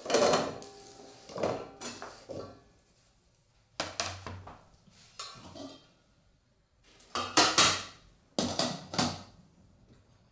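Chunks of raw sweet potato clattering from a chopping board into a stainless steel steamer pan, followed by the steamer basket and its lid clanking as they are set onto the pot. The loudest clanks come in a cluster about two-thirds of the way through.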